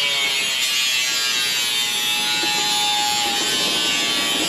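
Small angle grinder running steadily as it cuts through a perforated steel mounting channel, a dense high grinding hiss over a steady motor whine.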